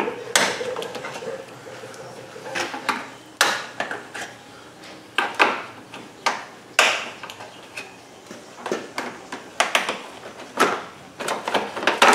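Irregular sharp clicks and knocks of plastic push-in retainers being worked out and a plastic radiator-support trim piece being handled, about ten in all, unevenly spaced.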